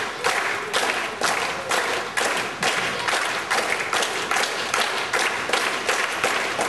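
Crowd clapping together in a steady rhythm, about two claps a second.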